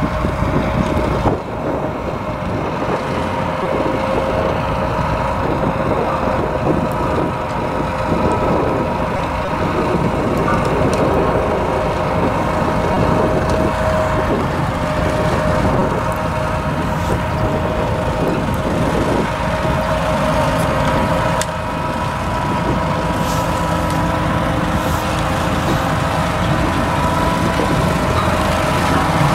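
Ropa Tiger 6 sugar beet harvester working in the field: its diesel engine and harvesting machinery run as a steady, loud drone with a constant whine on top, growing a little louder as it approaches near the end.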